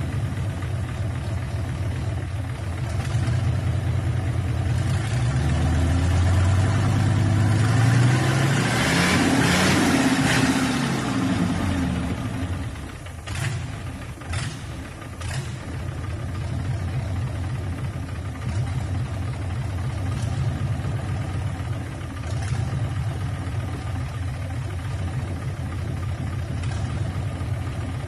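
Nissan Diesel 10PD1 V10 bus diesel engine running out of its vehicle on a test. It idles, is revved up for a few seconds and eases back to a steady idle. A few sharp clicks come just after the rev.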